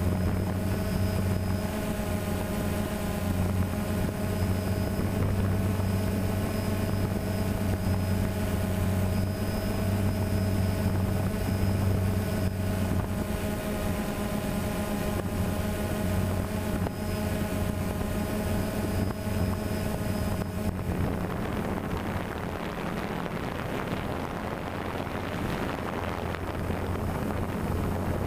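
DJI Phantom quadcopter's electric motors and propellers humming steadily, picked up by a camera mounted on the drone. About 21 seconds in the hum weakens and a rushing wind noise takes over.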